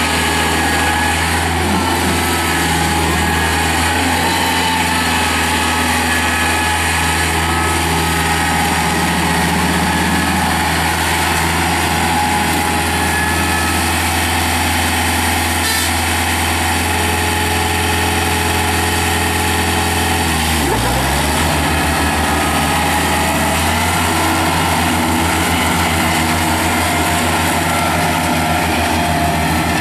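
Kubota B2710 compact tractor's three-cylinder diesel engine running steadily as the tractor drives and mows with its belly mower deck. About two-thirds of the way through the engine note dips sharply and then recovers.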